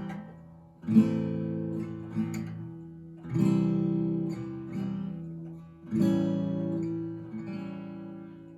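Acoustic guitar strummed: three chords struck about two and a half seconds apart, each left to ring and fade away, as a song's introduction before the singing starts.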